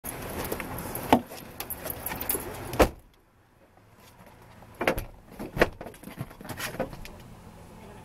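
Rustling and keys jangling inside a parked car as people get out, then a car door shut with a thump about three seconds in, after which the cabin goes much quieter. A few sharp knocks and clicks follow inside the closed car.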